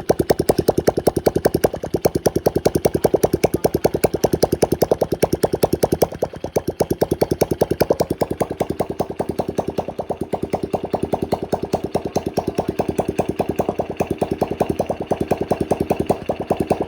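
Honda Blade 110 cc single-cylinder four-stroke motorcycle engine idling steadily, with quick, even exhaust pulses.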